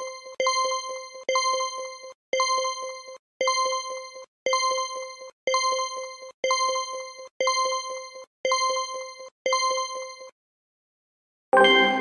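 Quiz countdown-timer sound effect: a pitched, ringing beep repeating about once a second through the 10-second answer time. It stops about ten seconds in, and after a short silence a louder chime rings out and fades, marking the reveal of the correct answer.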